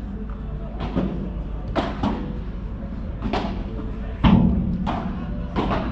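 Padel rally: a string of sharp ball strikes, about seven in six seconds at an uneven pace, the loudest a heavy thud about four seconds in.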